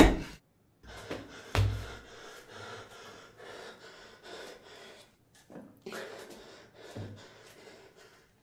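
A man breathing heavily in ragged gasps, roughly once a second, with one louder burst about one and a half seconds in.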